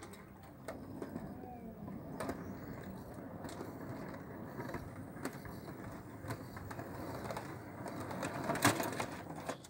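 O gauge model goods wagons rolling along metal track, a steady rumble of the wheels with irregular sharp clicks as they run over the rail joints and pointwork, the loudest click about nine seconds in.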